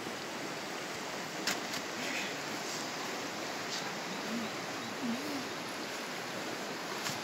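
Steady rushing of a river's flowing water, with a few faint clicks over it.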